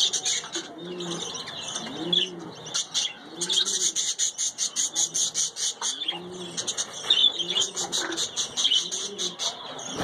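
A flock of budgerigars chattering and warbling in a high, busy stream, with a run of fast clicking chatter in the middle. Under it, a low coo repeats about once a second.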